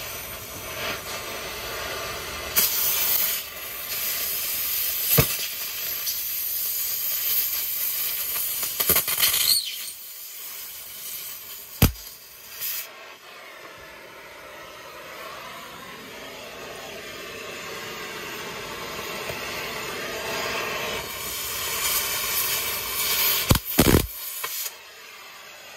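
Oxy-fuel cutting torch cutting into the steel of an excavator cylinder end: a steady hiss with a few sharp pops. The hiss dips about ten seconds in, then builds again toward the end.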